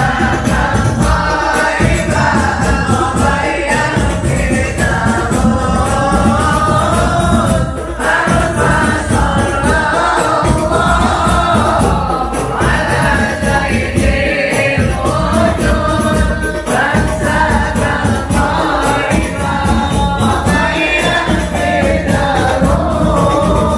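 A group of voices singing sholawat (Islamic devotional songs) together over steady frame-drum and tambourine percussion.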